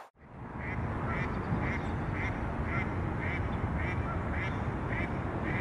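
Short quacking calls repeated evenly, about two a second, over a steady low rumble.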